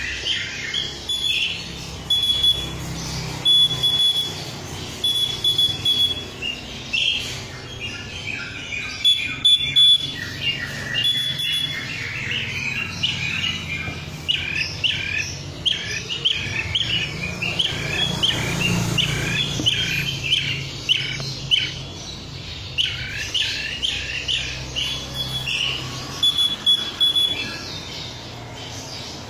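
Blue-tailed bee-eater calling: a long run of short chirps mixed with brief, repeated high piping notes, over a steady low hum.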